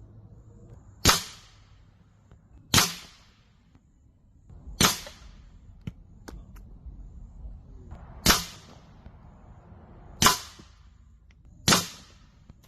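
Six shots from an AEA Challenger Pro .25 calibre PCP air rifle, each a sharp crack with a short ringing tail, fired a second and a half to three and a half seconds apart. Two faint clicks come in the longer gap between the third and fourth shots.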